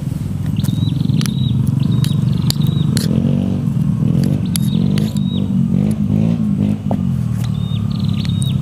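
Vehicle engine noise from a main road: a steady low hum that swells and wavers between about three and seven seconds in as traffic passes. Over it a bird gives short, repeated chirps, and there are a few sharp clicks.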